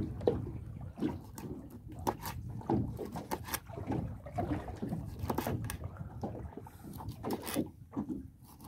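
Irregular knocks, clatter and splashing aboard a small open fishing boat rocking in the swell, over a steady low rumble of wind and water.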